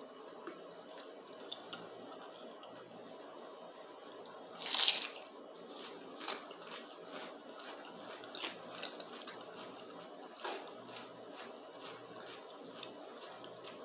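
Close-miked eating: chewing and wet mouth sounds, with small clicks and scrapes of a fork twirling spaghetti on a plastic plate. A single louder, breathy burst comes about five seconds in.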